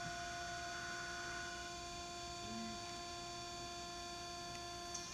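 Okamoto surface grinder running with a steady electric hum made of several held tones.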